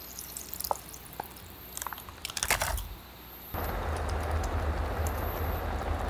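Crinkling and crackling of a plastic sauce pouch being handled and squeezed, loudest about two and a half seconds in. About three and a half seconds in it changes abruptly to the steady bubbling and hiss of pasta simmering in cream sauce in a pot on a camping stove, with a low hum underneath.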